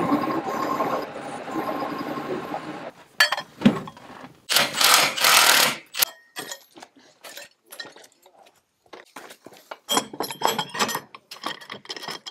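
A steady machine noise for about three seconds that stops abruptly, followed by a run of sharp metallic knocks and clinks with two bursts of rough scraping noise, typical of heavy metal equipment being shifted and handled.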